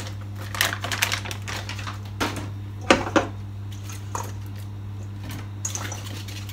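Vegetables dropped by hand into a steel pot, frozen peas then Brussels sprouts: an irregular scatter of light clicks and knocks, with two sharper knocks about three seconds in. A steady low hum runs underneath.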